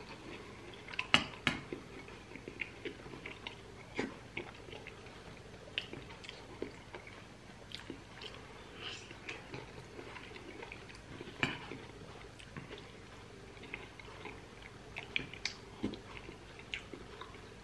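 Close-miked eating: a man chewing pork rib meat and spooned bean stew, with many small mouth clicks and a few sharper clicks, the loudest just after a second in and again near eleven and a half seconds.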